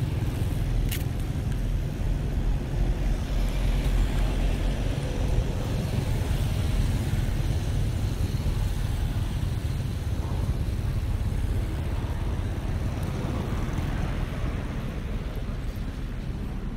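Steady low rumble of outdoor background noise, with a faint click about a second in.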